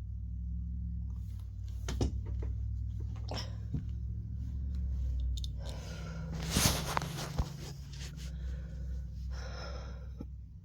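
A person yawning: a long breathy intake of breath about six seconds in and a shorter breathy exhale near the end, over a steady low hum and a few sharp clicks.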